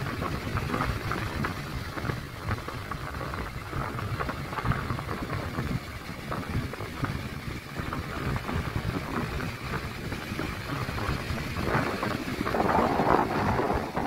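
Sea waves breaking and washing on a beach, a steady rushing surf, with wind buffeting the microphone. A wave crashes louder near the end.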